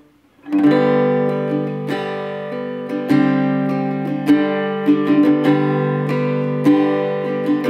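Acoustic guitar strummed in a steady rhythmic pattern, ringing chords starting about half a second in.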